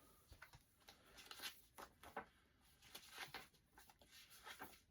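Faint, scattered clicks and rustles of CDs and their packaging being handled.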